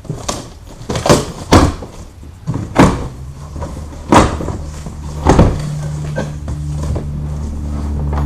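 Cardboard shipping box being cut and torn open with a makeshift cutter: a series of sharp rips and knocks about once a second. From about three seconds in, a steady low hum joins and grows louder.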